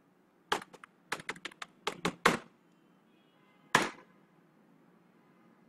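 Computer keyboard typing: a quick run of about a dozen keystrokes over two seconds, then one more keystroke about a second and a half later.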